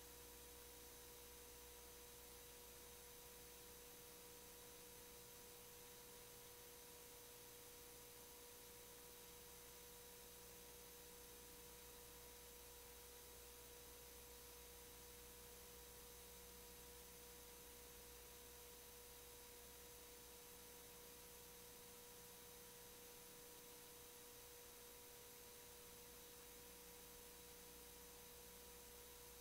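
Near silence: faint steady electronic hum with a constant tone and hiss.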